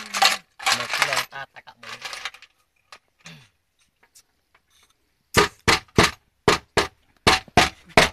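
Voices for about the first two seconds, then after a short lull a fast, even run of sharp smacks, about three a second, begins a little past halfway and keeps going.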